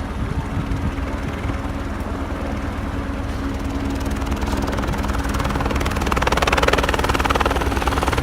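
Helicopter rotor chop, a fast steady beating over a low hum, growing louder from about six seconds in as the helicopter comes closer.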